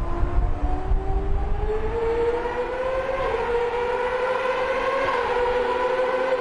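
Mercedes-AMG DTM race car's V8 engine under hard acceleration, its pitch rising steadily for about three seconds and then holding high, with a short dip about five seconds in.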